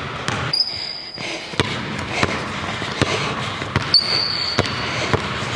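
Basketball dribbled on a hardwood gym floor, a run of sharp bounces. Two brief high squeaks come through, one about half a second in and one about four seconds in.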